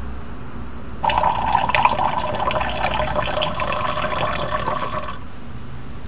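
A thin stream of liquid poured into a cut-glass tea glass in a metal holder. It starts suddenly about a second in and stops about four seconds later.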